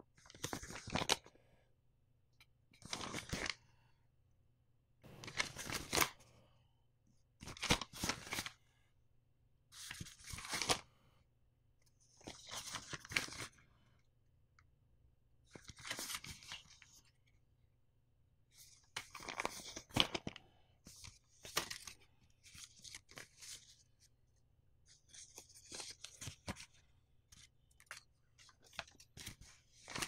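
Paper being folded and unfolded by hand: about a dozen crisp crackling rustles, each lasting roughly a second, with short pauses between them.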